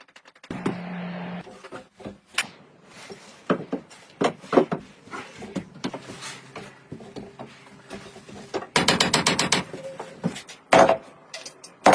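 Wood being worked with hand tools: scattered knocks and taps, and a run of quick rasping strokes just before the ninth second.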